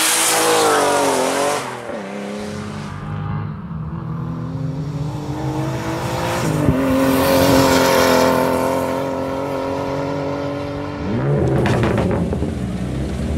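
BMW E46 rally car engine revving hard through several cut-together passes. First the car slides past with the engine pitch rising and falling over tyre noise. Then it accelerates steadily at a distance, and near the end a closer engine runs with a few clicks.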